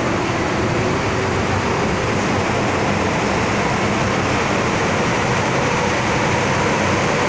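Steady running noise inside the car of an MTR M-Train electric multiple unit moving along an underground station platform: a continuous rumble of wheels on rail, with no distinct hits or breaks.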